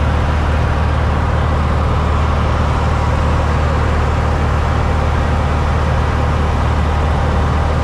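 Single-engine light aircraft's engine and propeller running steadily in flight, heard from inside the cabin as a constant low drone with a steady hum beneath it.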